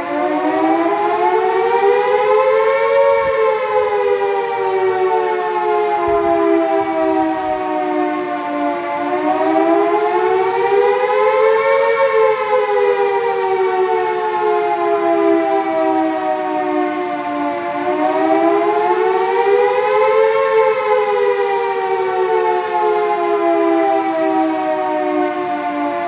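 Fire station warning siren wailing continuously, its pitch slowly climbing for about three seconds and sinking for about six, repeating three times.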